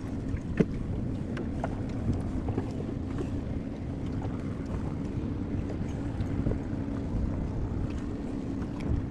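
Steady low rumble of wind and water on a small boat at sea, with one sharp knock about half a second in and a few faint clicks after it.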